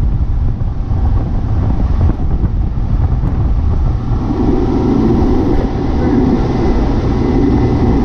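Boat engine running as the boat travels, with wind buffeting the microphone; the engine grows louder from about halfway through.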